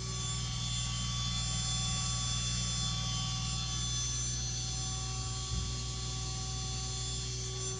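1.5 kW water-cooled CNC spindle running steadily, unloaded: a quiet, even high whine over a low hum. A brief knock about five and a half seconds in.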